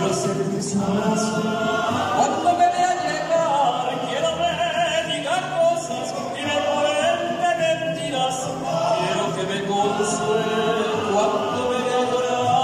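A tuna, a student music ensemble of guitars and voices, performing a slow romantic song: a group singing over guitar accompaniment.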